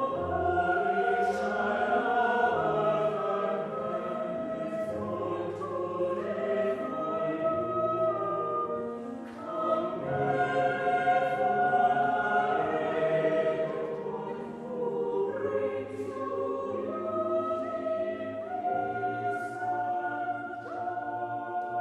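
A choir singing slow phrases of held chords, with short breaks between phrases about nine and fourteen seconds in and sung 's' sounds cutting through now and then.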